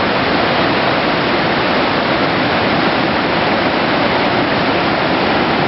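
Gullfoss waterfall's heavy, steady roar of falling water.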